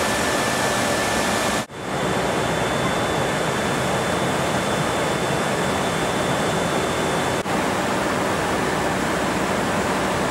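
Steady loud cabin noise inside a C-17 cargo aircraft's hold in flight, the even rush of its turbofan engines and airflow, with a faint high whine on top. The noise cuts out for an instant twice, about two seconds in and again past seven seconds.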